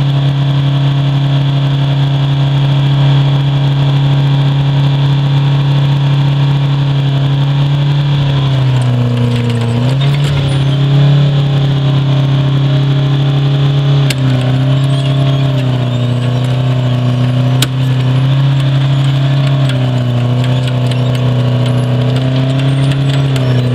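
Engine of a tracked wheel trencher running steadily while its cutting wheel digs a trench, with a high whine over it that stops about eight seconds in. Around nine seconds in the engine note drops and wavers, and it shifts again a few times later, as its load changes. Two sharp clicks come in the second half.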